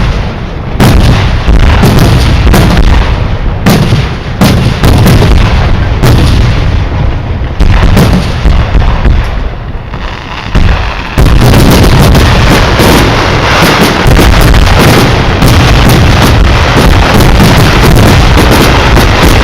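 Fireworks display: shells bursting with loud bangs in quick succession and short gaps between them. About halfway through this becomes a dense, continuous barrage of bangs and crackle.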